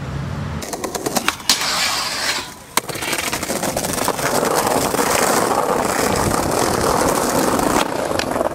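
Skateboard wheels rolling over hard, rough pavement: a few sharp clacks of the board in the first three seconds, then a steady rolling roar that ends shortly before the close.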